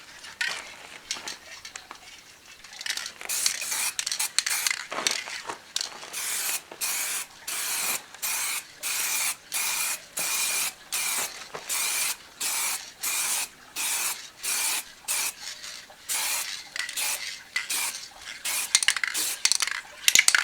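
Aerosol spray paint can hissing in short, rapid bursts, about two a second, as the darker base coat is sprayed on in quick passes.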